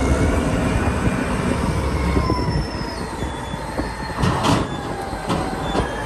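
Caterpillar 992C wheel loader at work: a steady low diesel rumble with drawn-out high metallic squeals. There are a few sharp knocks in the second half.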